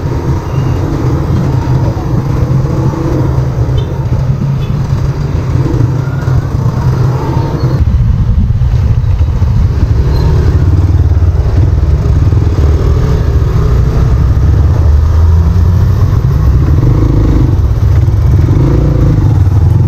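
Motorcycle engine running while riding, with wind and road noise on the on-bike microphone; it gets louder about eight seconds in.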